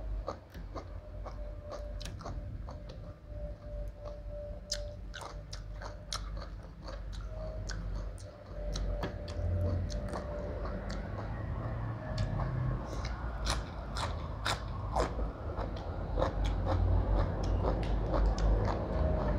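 A person chewing mouthfuls of food close to the microphone, with many crisp crunches of raw leafy vegetables and herbs.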